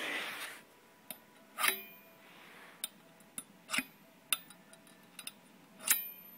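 Fingerboard clacking against the metal rail of a wooden fingerboard ramp: a short scrape at the start, then about eight sharp, uneven metallic clicks and taps.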